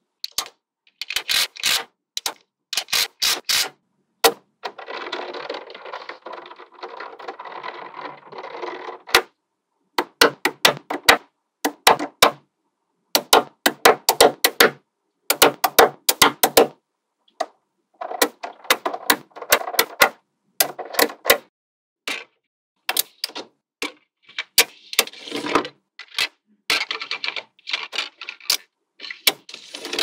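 Magnetic balls clicking and snapping together in quick clusters of sharp clicks, with a few seconds of continuous rattling about five seconds in. The bursts are separated by short, abrupt silences.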